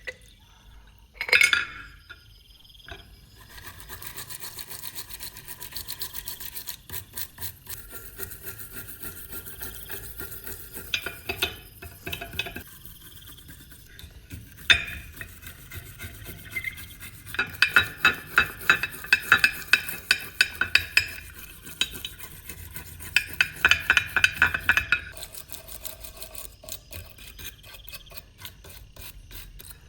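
Rapid rubbing and scraping strokes of hand work on a metal object, loudest in two bursts past the middle, with a short sharp knock about a second and a half in.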